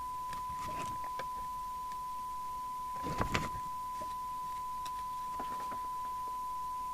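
Steady single-pitch test tone from the signal generator's modulated carrier, heard through the CB radio's receiver audio, with a few handling clicks and rustles; the loudest cluster comes about three seconds in.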